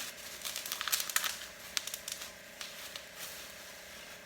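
Crinkling and rustling of plastic packaging being handled, in a quick run of crackles for the first couple of seconds, then sparser and quieter.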